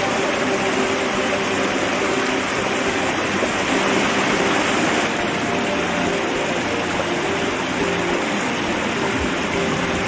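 Shallow mountain stream rushing over rocks in a fast riffle: a steady, even rush of water.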